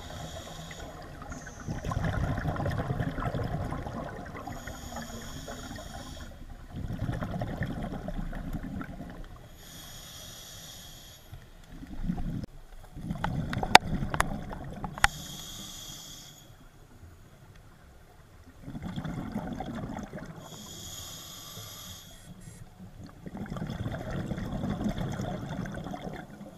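Scuba diver breathing through a regulator underwater, heard by the diver's camera: short hisses from the regulator alternate with longer swells of rumbling exhaust bubbles, a full breath about every five seconds, with a few sharp clicks about midway.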